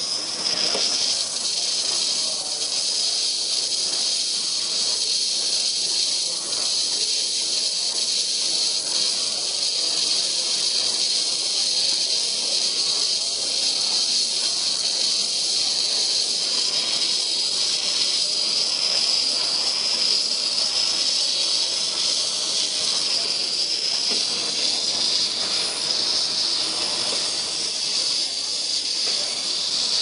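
Steady high-pitched hiss from a robotic milking unit's vacuum system while its teat cups are attached and milking a cow.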